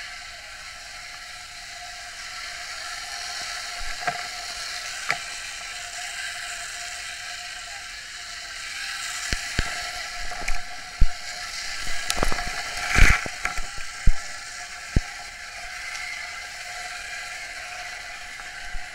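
A steady hiss with scattered sharp knocks and clicks, a single one about four and five seconds in, then a dense cluster in the middle.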